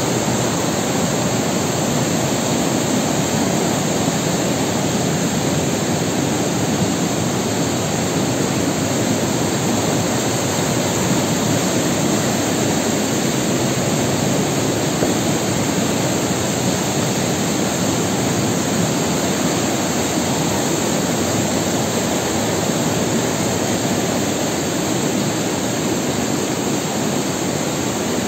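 Stream rushing and cascading through a narrow rock gorge: a loud, steady rush of water, slightly quieter near the end.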